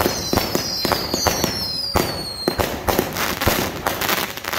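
Fireworks bursting overhead in rapid succession, a dense run of bangs and crackles. In the first half, several high whistles fall slowly in pitch and stop a little over halfway through.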